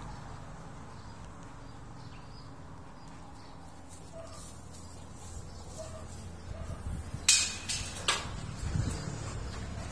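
Quiet outdoor background with a few faint bird chirps, then two sharp snaps about a second apart near the end, with lighter rustling after them.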